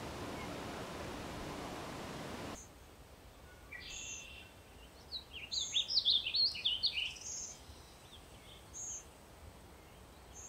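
A steady rushing noise cuts off suddenly about two and a half seconds in and gives way to quieter outdoor ambience with birds singing: quick chirping and warbling notes, loudest in the middle, and a short high note repeating every second or two.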